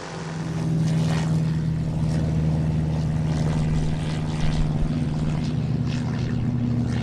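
Seaplane's propeller engine running at high power on its takeoff run from the water. It grows louder during the first second, then holds a steady drone over a rushing, splashing noise.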